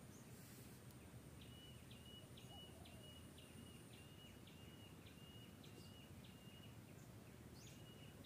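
Faint outdoor ambience with a distant bird calling: a short high note repeated about twice a second for several seconds, pausing, then twice more near the end.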